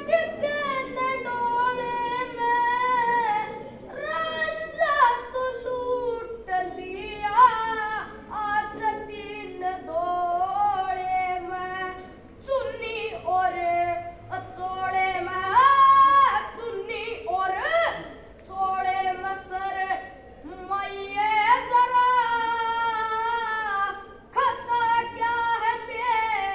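A boy's voice singing a Haryanvi ragni folk song unaccompanied, in long held, ornamented notes with short pauses between phrases.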